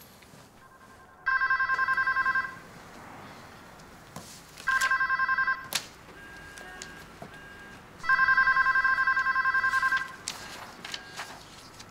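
Electronic office telephone ringing with a warbling trill, in three bursts of about one to two seconds, the last the longest.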